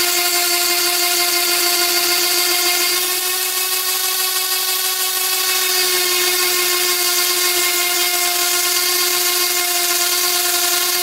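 Electric orbital sander running at a steady, even-pitched whine while a pine goblet cup is pressed by hand against its spinning sanding pad, rounding and smoothing the wood.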